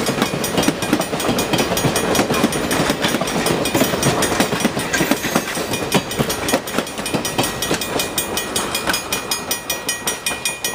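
Passenger coaches rolling past over jointed track, wheels clicking and rumbling, while a grade-crossing bell rings in rapid, even strokes. The rumble of the cars eases near the end as the last coach clears, and the bell keeps ringing.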